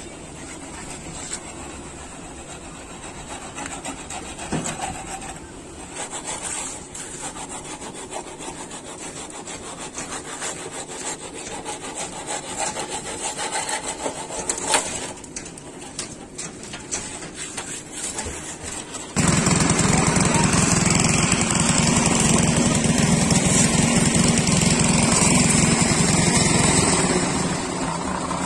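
Wet concrete being scraped and dragged level across a reinforced roof slab with a straight pipe and a screed board, an irregular rubbing and scraping. About two-thirds of the way in, a loud steady noise starts abruptly and eases off shortly before the end.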